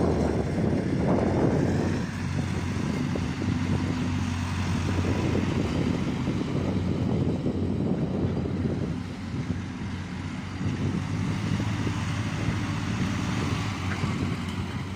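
Diesel engine of heavy construction equipment running steadily, with a low hum. It is a little louder for the first two seconds, then settles.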